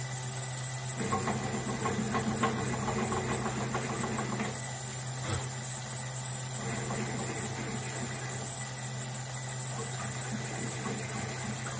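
Drill press running, with a steady motor hum, as a 9/32-inch drill bit cuts a shallow rim recess into the head of a brass cartridge case. The scrape of the bit cutting the brass is loudest from about one to four and a half seconds in, then lighter.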